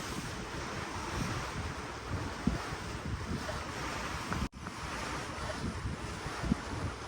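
Ocean water washing and surging below a cruise ship, with wind buffeting the microphone in low gusts. The sound drops out for an instant about four and a half seconds in.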